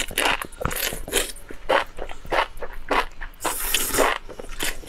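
Close-up eating sounds: enoki mushroom strands in chilli broth being slurped off chopsticks and chewed, a quick run of wet smacks and bites with a longer hissing slurp about three and a half seconds in.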